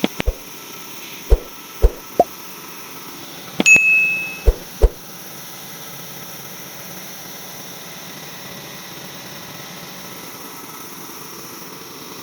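Sharp knocks and clanks of work at a sawmill, about seven in the first five seconds, one followed by a brief metallic ring, over a steady machine hum that carries on alone after that.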